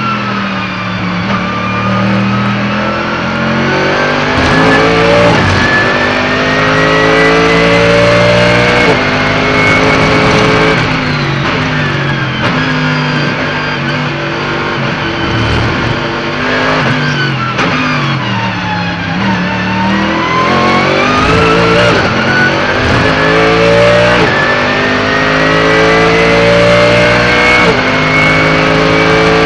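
Mercedes-AMG GT3's naturally aspirated V8 at racing speed, heard onboard. It pulls up through the gears with sharp upshifts. About halfway through the revs fall away under braking and downshifts, then it accelerates hard through the gears again.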